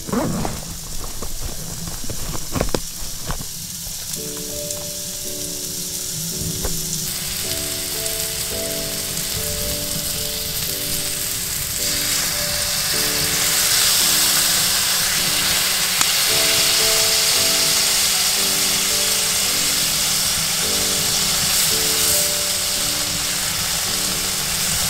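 Scallops frying on a hot iron griddle over a wood stove, sizzling steadily. The sizzle jumps louder about halfway through as sauce is poured onto the griddle. A simple melody of background music plays over it, and a few clicks sound in the first seconds.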